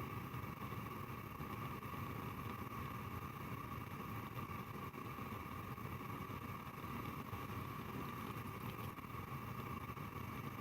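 Gas stove burner running steadily: a continuous hiss with a low rumble underneath, no ignition clicks.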